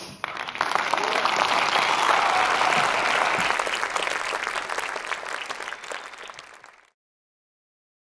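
Audience applauding. The clapping swells within the first second, tapers off after about five seconds, and cuts to silence about seven seconds in.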